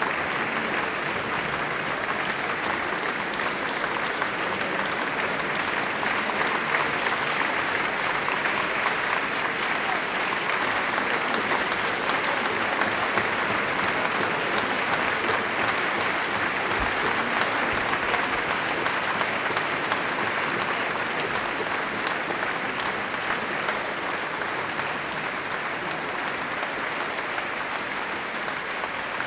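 Concert audience applauding steadily after a symphonic performance, a long, dense ovation that eases slightly near the end.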